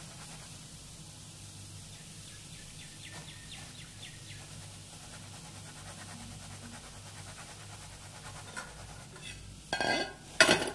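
Gulab jamun dough balls frying in hot oil: a low steady sizzle with faint crackles. Near the end come two loud, short clatters of the fried balls and metal strainer knocking into a bowl.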